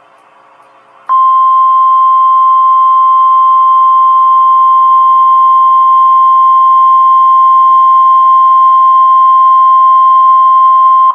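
NOAA Weather Radio 1050 Hz warning alarm tone: a single loud, steady beep that starts abruptly about a second in, after faint radio hiss, and holds for about ten seconds. It alerts listeners that an emergency weather message follows.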